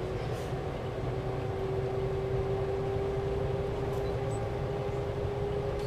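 Cabin noise of the Shanghai Maglev train accelerating past about 115–120 km/h: a steady low rumble with a single tone that rises slowly in pitch as the train gathers speed.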